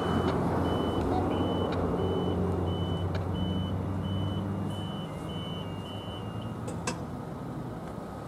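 Level crossing warning bell ringing a single high ding about one and a half times a second as the boom barriers lift, stopping near the end. Under it, the low hum of a just-passed electric train fades away, with a few sharp clicks.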